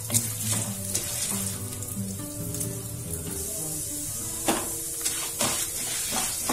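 Chana dal frying in hot oil in a kadai, a steady sizzle as it browns toward golden, with a few scrapes of a wooden spatula stirring it near the start and again in the second half. Background music plays throughout.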